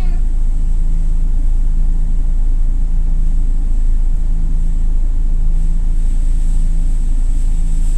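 Toyota Coaster LPG minibus engine running at low speed, a steady low hum heard from inside the passenger cabin.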